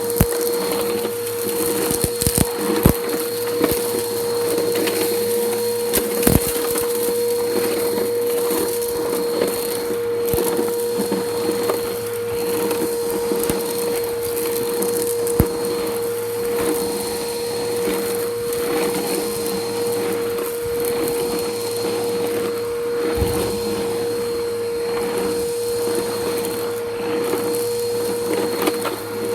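Bissell Powerforce Helix upright vacuum running steadily with a constant motor whine while it sucks grit and debris off concrete, which crackles and crunches through it with scattered sharp clicks.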